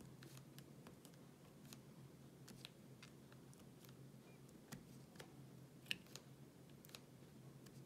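Faint, scattered light clicks of a diamond-painting drill pen picking up drills and pressing them onto the sticky canvas, about a dozen of them, the sharpest a little under six seconds in.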